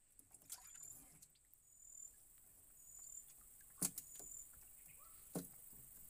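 Faint insect chirps, a short high note repeating about once a second over a steady high hiss, with two sharp knocks from the fish trap being handled in the boat, about four and five seconds in.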